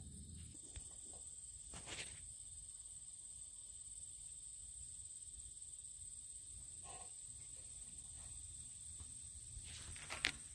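Faint outdoor ambience: a steady high-pitched whine over a low rumble, with a few soft clicks or rustles and a sharper click near the end.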